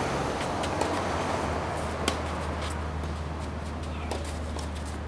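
Tennis ball struck by rackets during a rally on a clay court: a few sharp pops, the loudest about two seconds in, over a steady low background hum.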